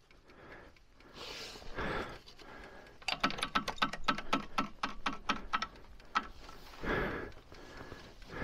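A quick run of light mechanical clicks, about six a second for nearly three seconds, comes from hands working around the dirt bike's rear wheel and brake. Brief rustling handling noises come before and after it.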